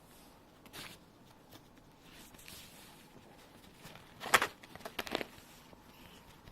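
A bag rustling as a cat moves in it: a few short crinkly rustles, the loudest about four seconds in, followed by two more about a second later.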